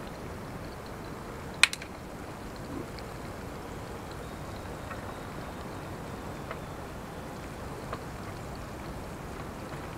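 Chopped onions sizzling in a frying pan over a small wood-burning can stove, a steady hiss. A sharp snap comes about a second and a half in, with a few faint crackles later.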